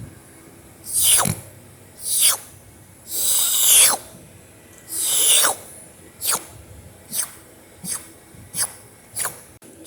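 Mouth-made licking sound effect, like someone licking a lollipop or ice cream cone: a run of wet slurping licks, about nine, each sliding down in pitch. Two licks about three and five seconds in are longer.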